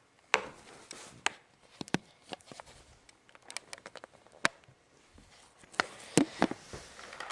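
About a dozen sharp clicks and knocks at irregular intervals, the loudest about a third of a second in, at about a second and a quarter, at about four and a half seconds, and around six seconds.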